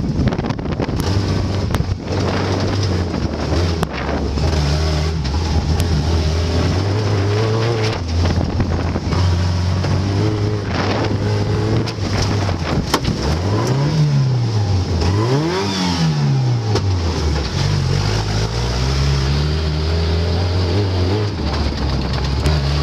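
Off-road 4x4's engine running hard over a muddy track, its pitch rising and falling twice in quick succession about two-thirds of the way through as the driver revs and lifts, with a few sharp knocks from the vehicle.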